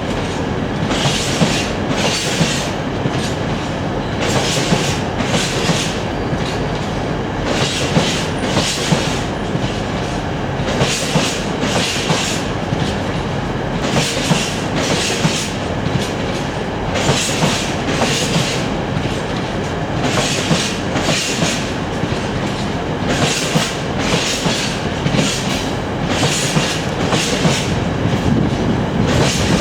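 Coal train of hopper wagons rolling past, with a steady rumble and a regular clickety-clack as the wheelsets pass over rail joints.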